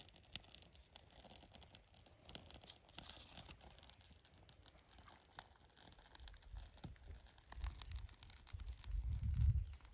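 Scratchy rustling and small crackles of thin bark and wood shavings being handled and fed into a small fire-starting flame, densest a couple of seconds in. A low rumble builds near the end and is the loudest part.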